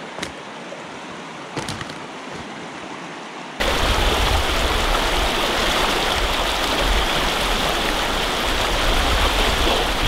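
Fast mountain river rushing over rocks, a steady noise with a couple of light knocks in the first two seconds. About three and a half seconds in it jumps suddenly much louder and fuller, with a deep low rumble underneath.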